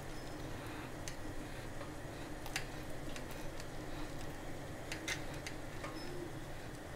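Small knife slicing through steamed muthiya (gram-flour vegetable dumplings) on a ceramic plate, giving a few irregular clicks as the blade meets the plate, over a steady low background hum.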